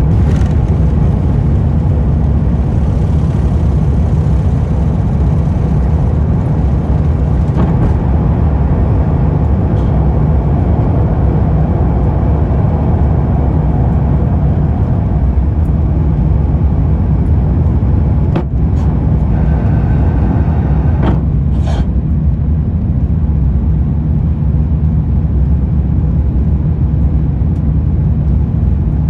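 Cabin noise in an Airbus A350-900 lifting off and climbing: its Rolls-Royce Trent XWB engines at takeoff thrust and the rush of air make a steady, loud, low-pitched roar. A few brief knocks come about two-thirds of the way through.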